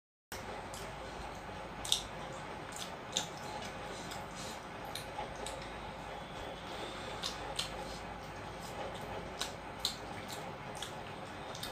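Eating sounds of people eating with their hands from brass plates: irregular sharp clicks and light wet smacks over steady background noise, the loudest clicks about two and three seconds in. It starts abruptly after a moment of dead silence.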